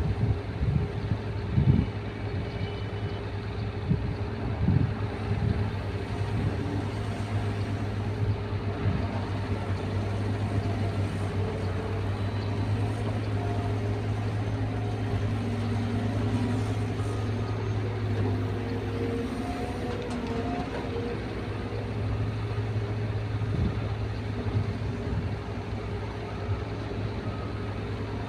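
Caterpillar 320 excavator's diesel engine running steadily, with a few knocks in the first five seconds.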